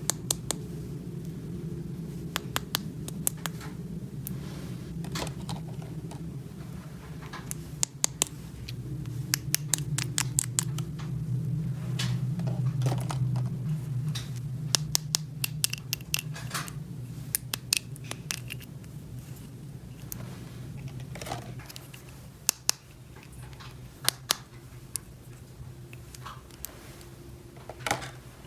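Small plastic toy pieces clicking, tapping and scraping as they are handled and fitted together, many sharp clicks at irregular intervals, over a steady low hum.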